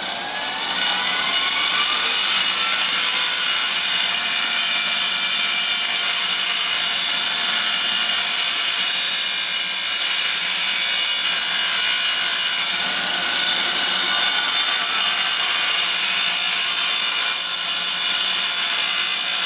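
Bench grinder with a coarse wheel grinding a steel pry bar, sparks flying: a rising whine as the wheel comes up to speed over the first two seconds, then a steady high grinding hiss that eases briefly about two-thirds of the way through.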